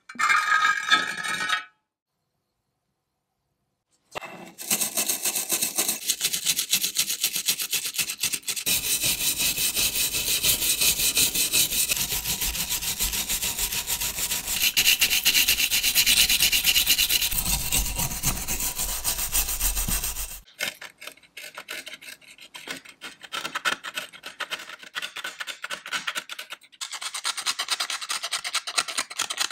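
A stiff brush scrubbing rust and loose paint off a tinplate toy submarine hull: a loud, fast, continuous rasping that stops about two-thirds of the way through. After that comes a flat metal blade scraping flaking rust and paint from a red fin in shorter, broken strokes.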